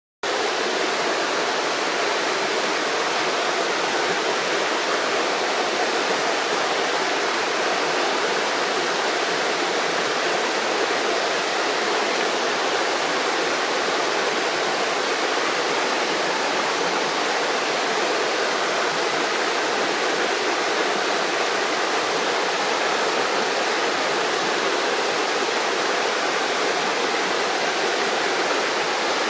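River water gurgling and rushing over stones, a steady unbroken flow.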